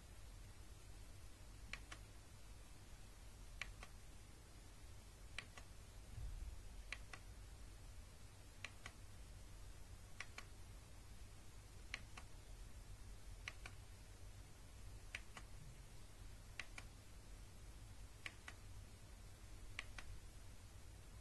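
Button on the base of a humidifier diffuser pressed over and over, a faint double click about every second and a half to two seconds. Each press switches the light ring to the next colour.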